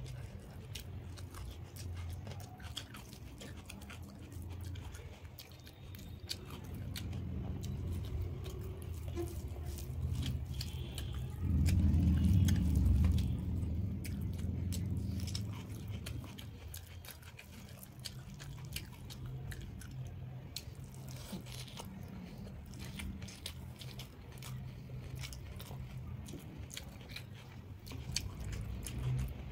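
A person eating rice and curry by hand, close-miked: wet chewing with small mouth clicks and smacks. The chewing is loudest for a couple of seconds about twelve seconds in.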